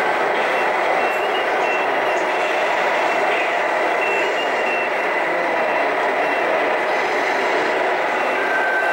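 Electronic sound units of radio-controlled model trucks playing a steady truck-engine sound, with short high beeps now and then like a reversing warning.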